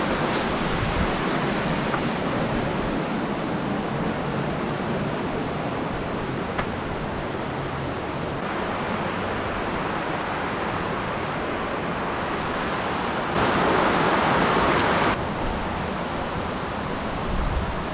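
Talofofo Falls' waterfall, a steady rush of falling water, swelling louder for a second or two about two-thirds of the way through.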